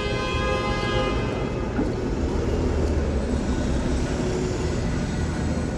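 Rush-hour city intersection traffic: a steady low rumble of idling and moving vehicle engines. A held, even-pitched tone with many overtones fades out within the first two seconds.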